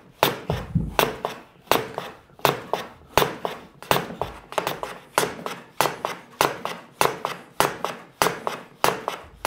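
Veritas low-angle jack plane shooting the end grain of a walnut piece on a shooting board: a quick series of crisp planing strokes, about two a second, as the blade slices shavings off the end grain.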